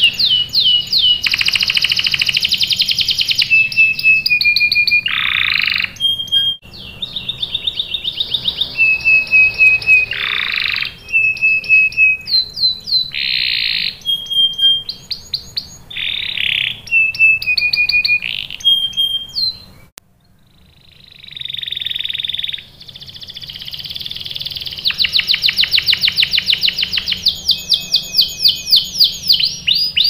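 Domestic canary singing a long, loud song of fast repeated notes, sweeping trills and rolls, the phrase changing every second or two, with a short pause about two-thirds of the way through.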